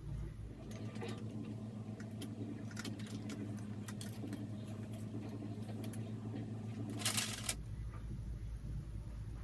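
Handling clicks and rattles of the ring light's tripod stand parts being fitted and adjusted, with a louder brief scrape or rustle about seven seconds in, over a steady low hum.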